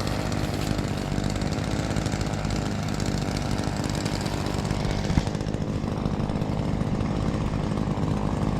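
An engine on brush-clearing equipment running steadily, with a sharp knock about five seconds in, after which the sound turns duller.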